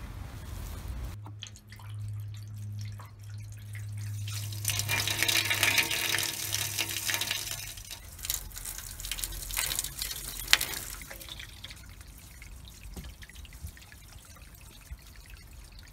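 Water from a barrel tap running into a plastic watering can for about a second. Then water running through a downspout and trickling into a steel rain barrel through its bung hole, loudest a few seconds in, thinning to a trickle with drips. A low steady hum sounds underneath until about halfway through.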